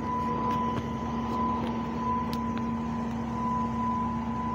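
Truck-mounted concrete boom pump running steadily while its boom is raised, a constant engine hum with a thin steady whine over it and a few faint ticks.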